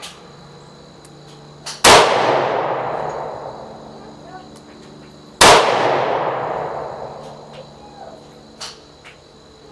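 Two .44 Special revolver shots from a Taurus M445, about three and a half seconds apart, each followed by a long echoing decay.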